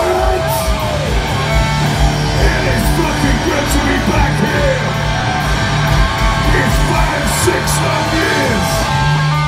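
Heavy metal band playing live at full volume: distorted electric guitar, bass and drums, with yells over the top.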